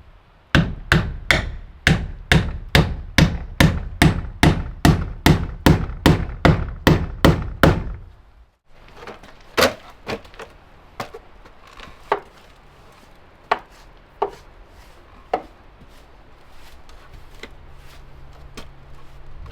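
Hammer driving nails into wood, a steady run of about two to three blows a second for the first eight seconds. After a break come a few scattered, lighter knocks and taps.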